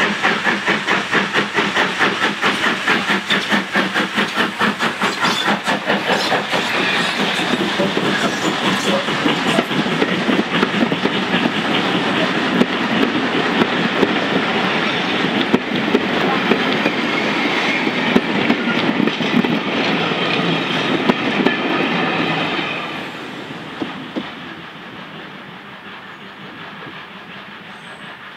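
LMS Fowler 4F 0-6-0 steam locomotive passing close by under steam, its exhaust beating in rapid, even chuffs. The coaches then roll past with a rumble and the clickety-clack of wheels over rail joints, and the sound drops away sharply about three quarters of the way through as the train recedes.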